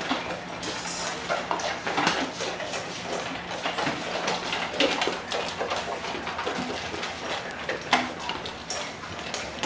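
Four dogs eating from metal bowls, with irregular clinks and knocks of the bowls as they feed.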